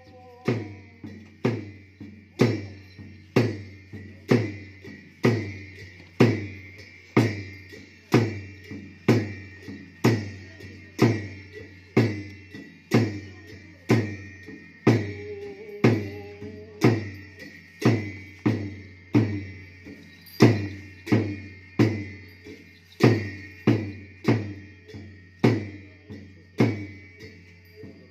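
Ache Lhamo dance accompaniment of drum and cymbals beating a steady, even rhythm of about three strokes every two seconds, with the cymbals' ring carrying between strokes.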